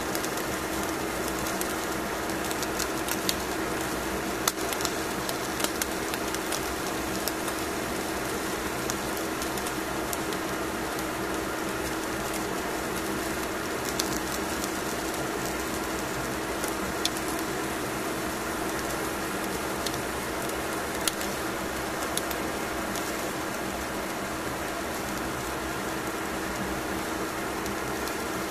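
A grill or oven running with a steady hum, and a salmon fillet on foil crackling as it cooks, with scattered sharp pops from the fat.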